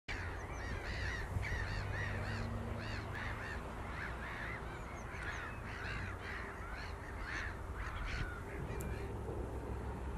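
A flock of black-headed gulls calling: harsh, overlapping calls in quick succession, thinning out near the end, over a steady low background rumble.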